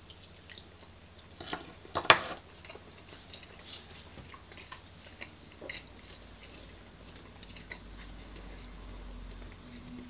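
Close-up chewing of a mouthful of beef Wellington: irregular wet mouth clicks and smacks, with a louder smack about two seconds in. The piece is very chewy.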